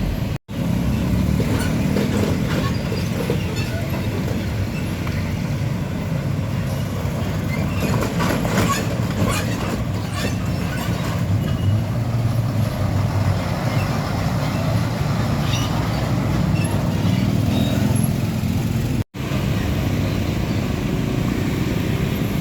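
Heavy trucks' engines and road traffic running steadily with a low rumble, with a spell of sharp ticks and rattles near the middle. The sound cuts out abruptly twice, about half a second in and near the end, at edits.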